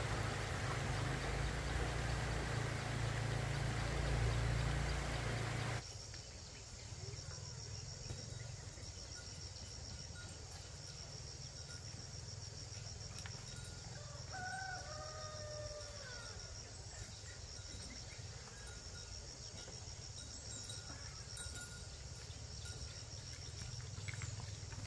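A low rumble for the first six seconds, cut off abruptly. After it, insects chirp steadily with an even, pulsing note, and a rooster crows once about midway.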